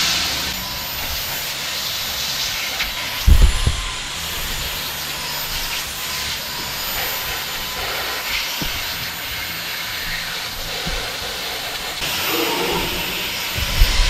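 Samsung Jet 70 cordless stick vacuum running steadily with its crevice tool, a steady rushing hiss of suction as the nozzle is worked along skirting boards and into sofa seams. Low thumps come at about three and a half seconds and again near the end.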